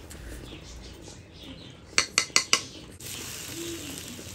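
Four quick clinks of a metal fork against a ceramic bowl, about two seconds in. About a second later a steady sizzle starts as the egg-soaked bread slice goes into the hot oiled frying pan.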